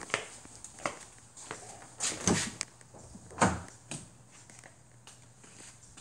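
Footsteps on a concrete floor: a few soft scuffs about a second apart.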